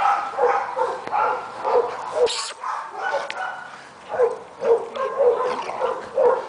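Dogs at rough-and-tumble play, yipping and barking in many short, repeated calls, with one brief harsh burst about two and a half seconds in.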